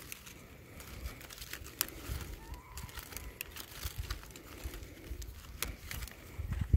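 Mango leaves rustling and crinkling as a gloved hand pinches off soft young shoot tips, with scattered sharp little snaps.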